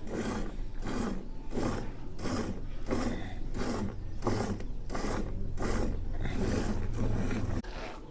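Milk squirting into a pail as a cow is hand-milked with both hands: a steady rhythm of hissing squirts, about three a second, that stops just before the end.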